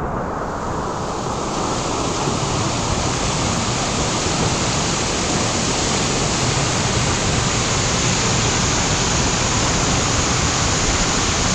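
Waterfall pouring over rock into a pool: a loud, steady rush of water that swells in over the first second or so and then holds even.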